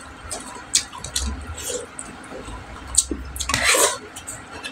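Close-miked eating sounds: wet chewing and lip-smacking with a few short clicks, and a louder wet smack about three and a half seconds in.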